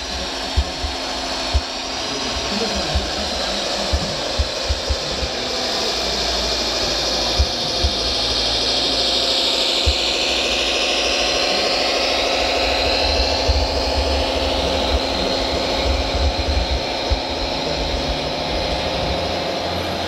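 Radio-controlled Bell B40D articulated dump truck model driving over sand: its electric drive motor and gearbox whine steadily, swelling and bending in pitch in the middle stretch as the speed changes, with scattered low thumps.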